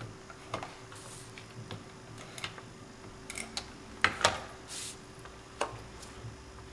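Light clicks and taps of paper crafting on a cutting mat: a handheld double-sided tape dispenser is run over card and handled. Two sharper knocks come about four seconds in, followed by a brief papery hiss.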